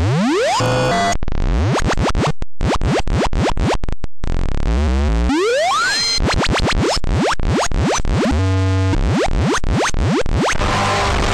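Digital noise cut-up music: a dense run of clicks and abrupt edits with fast upward pitch sweeps and brief drop-outs to silence. About three-quarters through a stuttering repeated tone appears, and near the end it gives way to a hissy noise wash.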